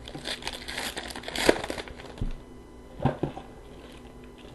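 A hockey card pack's foil wrapper being torn open and crinkled, loudest about a second and a half in, followed by a few light clicks and taps as the cards are handled.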